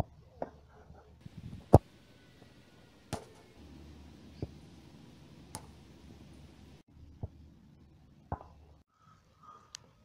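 Football being kicked and striking hard: a series of short, sharp knocks about once a second or so, the loudest about two seconds in.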